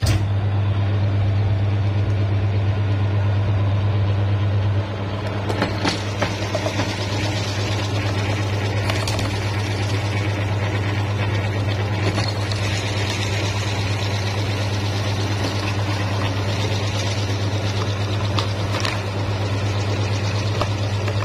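Electric meat grinder switched on and running with a steady low motor hum. About five seconds in the hum dips slightly as chocolate-coated ice cream bars go through the auger, and a few sharp cracks of the frozen chocolate shell come through the hum.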